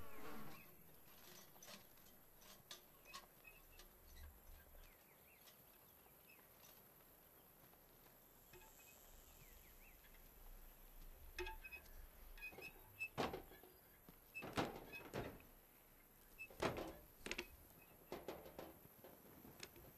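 Faint footsteps on grass and the soft knocks of a handled plastic gas can, scattered thunks that come closer together and louder in the second half.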